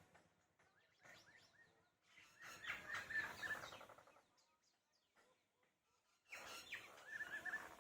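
Common mynas calling in three spells of rapid repeated notes and short whistles: briefly about a second in, loudest from about two and a half to four seconds, and again near the end.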